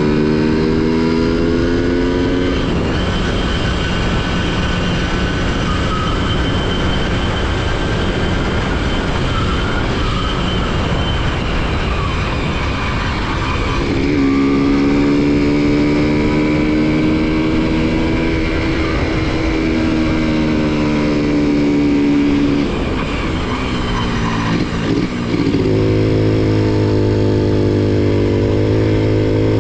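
Honda CDI-100's single-cylinder four-stroke engine running, its note rising with the revs. The note climbs near the start, is masked by a rushing noise for about ten seconds, then climbs again and drops to a lower pitch near the end.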